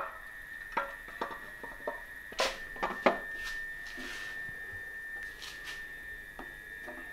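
Light knocks and clicks as a black cam cover is set down and shifted on a 1JZ engine's cylinder head, the knocks clustered in the first few seconds and strongest about two and a half and three seconds in. A steady high-pitched tone runs underneath throughout.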